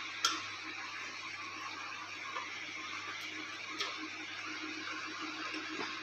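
Light clicks of hand work on a washing machine's plastic base, once about a quarter second in and again near four seconds in, over a steady hiss.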